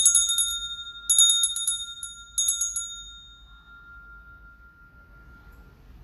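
Altar bells (Sanctus bells) rung three times at the elevation during the consecration, each ring a short jangling shake a little over a second apart. One tone hangs on and slowly dies away near the end.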